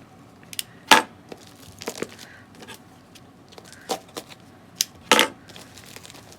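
Packaging being handled during an unboxing: scattered clicks, knocks and light rustles, with sharper knocks about a second in and about five seconds in.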